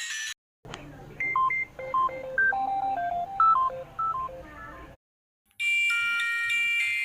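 Ringtones from a VTV Travel 4649 4G mobile phone played one after another: one stops just after the start, a simple melody of single beeping notes plays for about four seconds, and after a short gap a brighter, busier ringtone begins.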